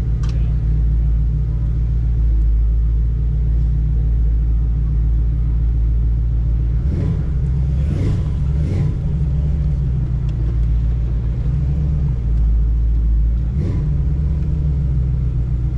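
Buick Regal's engine rumbling steadily as the car creeps along at low speed. Its note shifts briefly a few times a little past the middle and again near the end.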